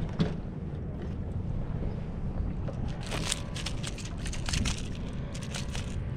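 Wind rumbling on the microphone on a boat at sea, with a few short clusters of sharp clicks about three seconds and four and a half seconds in.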